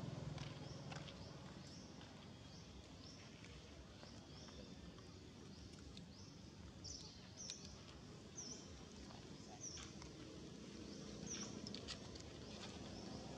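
Faint, short high-pitched chirps, each dropping in pitch, repeating about once a second through the second half, with a few soft clicks.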